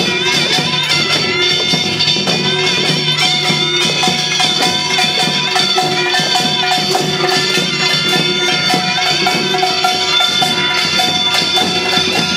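Korean pungmul farmers' band music: fast, dense drumming and metallic gong clanging, with a reedy shawm-like melody wavering over it.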